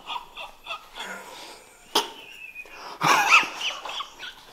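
A man's muffled vocal outbursts smothered into his shirt sleeve, short and breathy, the loudest about three seconds in. A single sharp click comes about two seconds in.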